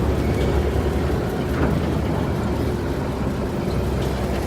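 Canal boat's engine running steadily with a loud, low rumble, heard from aboard.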